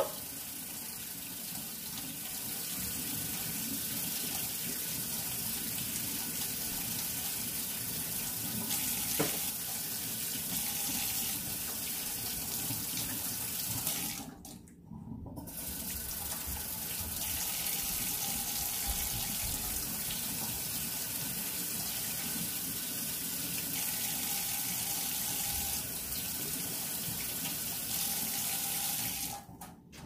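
Kitchen sink faucet running steadily as a coffee maker's removable filter basket is rinsed of hot-cocoa residue. The flow cuts off for about a second midway, then runs again until shortly before the end.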